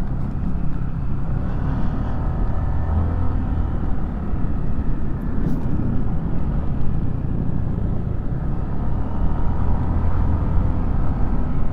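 Yamaha scooter riding at a steady, moderate speed: a continuous low engine drone mixed with wind and road noise.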